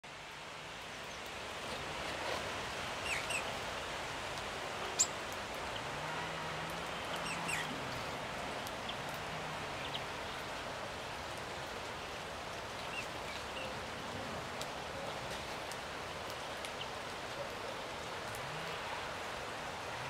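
Short chirps and calls of small songbirds over a steady outdoor hiss, with a single sharp click about five seconds in.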